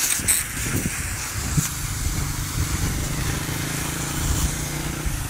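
Motor vehicle engine running steadily at an even pitch, heard from the moving vehicle with road and wind noise over it.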